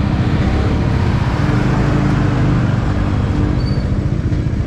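Bajaj Dominar 400's single-cylinder engine running steadily under way, with wind noise on the microphone.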